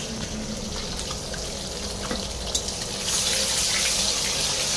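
Whole peeled boiled eggs sizzling in hot oil in a steel karahi: a steady hissing sizzle that gets louder about three seconds in, with a few faint clicks.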